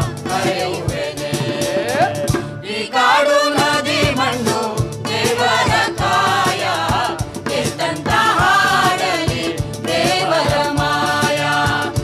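Background music: a group of voices singing a theatre song over a steady drum beat.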